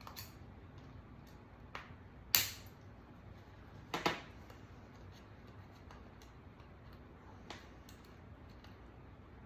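A few sharp clicks and knocks of an Allen key and small air-rifle parts being handled during disassembly, the two loudest about two and four seconds in.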